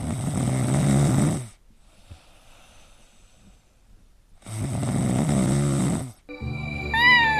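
A sleeping pet snoring, two long snores about three seconds apart. Near the end, a different sound with steady tones and a short rising-and-falling whine comes in.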